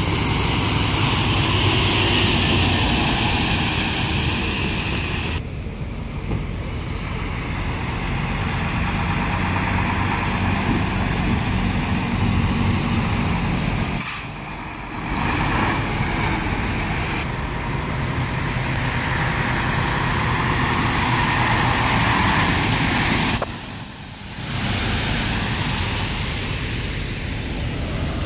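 Diesel engines of several semi-trucks running as they pull past and turn, with tyre hiss on wet pavement. The sound drops away briefly three times.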